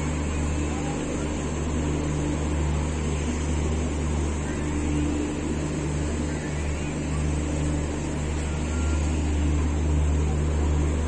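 Steady low hum and rumble inside a passenger train coach, even throughout with no sudden events.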